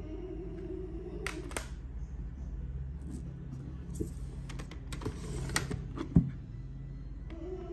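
Plastic CD jewel cases clicking and clacking as they are handled and pulled from a box set's slots: a scattering of light clicks with one sharper knock about six seconds in.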